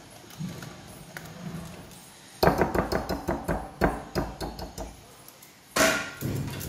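Wire whisk knocking against a glass measuring jug of pancake batter: a quick run of about a dozen sharp clinks and knocks, with the glass ringing, and another clatter near the end.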